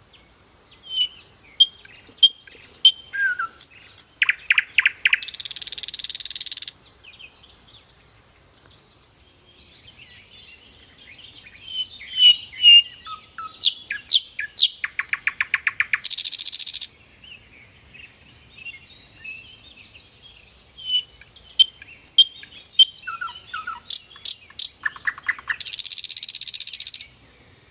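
A songbird singing the same song three times, about ten seconds apart. Each song runs from a string of short chirps and whistles into a fast trill and ends in a harsh, buzzy rasp that cuts off suddenly.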